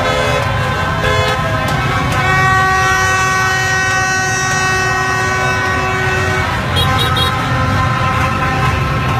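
A horn held on one steady pitch for about four seconds, starting about two seconds in, over the dense rumble of a packed street of motorbikes and revellers, with shorter horn toots around it.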